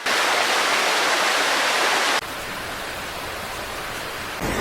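Rushing floodwater: a steady wash of noise that drops abruptly to a quieter rush about two seconds in, then turns louder and deeper near the end.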